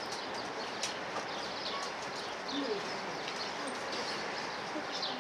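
Small birds chirping repeatedly in short high calls over a steady background murmur from a crowd of spectators.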